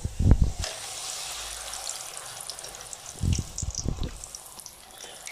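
A maida puri deep-frying in hot oil in a kadai, with a steady sizzle and crackle. Dull low knocks sound near the start and again about three seconds in.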